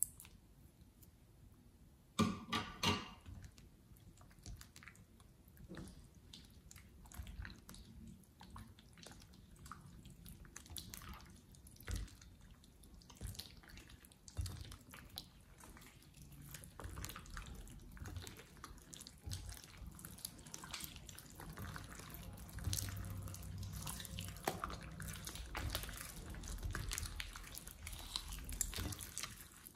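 Wet, glossy slime squished, folded and stretched by hand in a glass bowl: irregular sticky squelches and clicks, with a louder burst about two seconds in and busier squishing in the second half.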